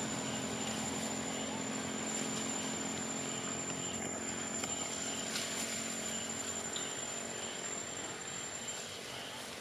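Outdoor insect sound: a thin, high, steady whine that cuts off near the end, with faint repeated chirps over a steady background hiss.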